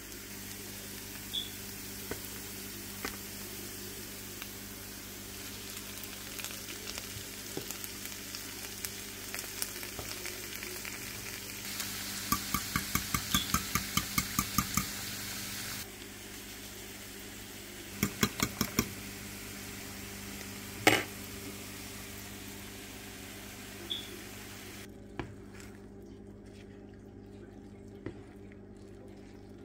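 Chopped vegetables sizzling in a frying pan, with a steady hiss. In the middle a fork beats eggs against a ceramic bowl in a quick run of clicks, then a shorter run and a single sharp knock. Near the end the sizzle drops away sharply as the beaten eggs go into the pan.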